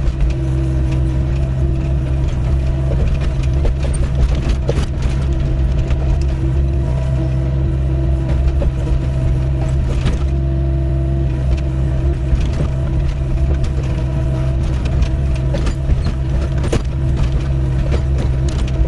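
Doosan 55W wheeled excavator's diesel engine running steadily under working load, with scattered sharp knocks and scrapes as the bucket digs stony ground.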